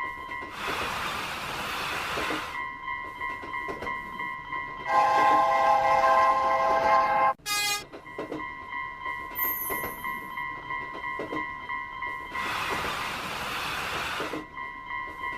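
Japanese level-crossing alarm ringing its repeated 'kan-kan' tone, with the noise of a train rushing past twice. About five seconds in, a train horn sounds for roughly two and a half seconds.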